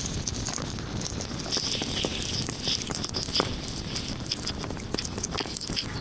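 Heavy rain pattering steadily, a dense spray of small drop impacts over a constant hiss.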